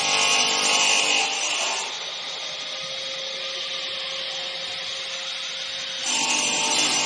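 Circular saw blade on an AKM2060D CNC router cutting a wooden board, a loud rasping whine. About two seconds in it drops to a quieter steady hum, and the loud cutting sound comes back about six seconds in.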